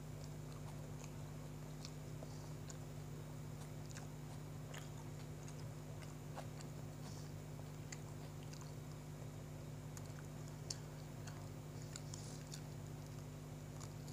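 A person chewing a mouthful of sandwich, with many small scattered mouth clicks, over a steady low hum.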